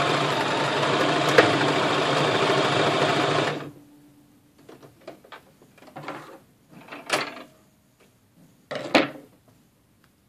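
Brother LS1520 electric sewing machine running steadily under its foot pedal, stitching through fabric, then stopping about three and a half seconds in. After that come scattered rustles and clicks as the fabric is handled and taken out of the machine.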